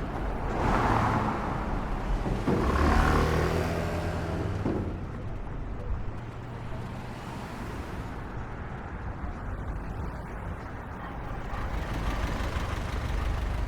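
City street traffic under a constant low rumble. A vehicle swishes past near the start, and a few seconds in a heavier engine holds a steady note for about two seconds. The traffic then eases off and builds up again near the end.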